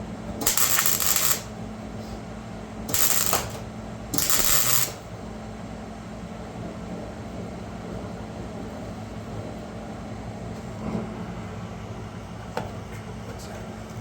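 Three short bursts of hiss in the first five seconds, the first about a second long, over a steady low machine hum, with a faint click or two later on.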